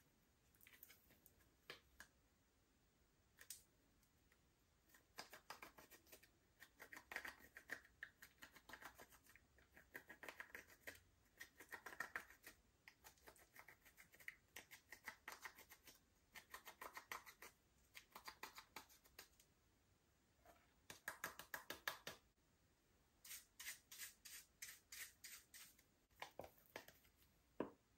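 Slime being squished and folded by hand, giving bursts of rapid small clicks and pops, each burst a second or two long with short pauses between.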